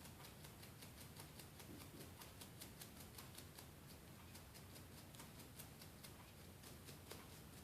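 Faint, quick scrubbing strokes, several a second, from cleaning Sprite residue off an iPod Classic's ribbon cable.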